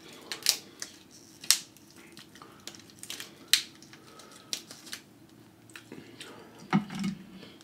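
Cooked lobster tail shell cracking and snapping as it is pulled apart by hand: a series of sharp, separate cracks, the loudest about half a second, a second and a half and three and a half seconds in.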